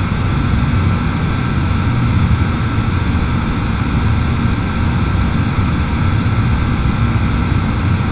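Loud, steady mechanical drone with a hiss and faint steady whines above it, unchanging throughout.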